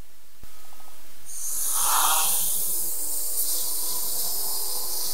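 SwellPro Fisherman Max quadcopter drone taking off with a bait on the line: its propellers spin up, and a steady rushing hiss builds about a second in and holds as it lifts away.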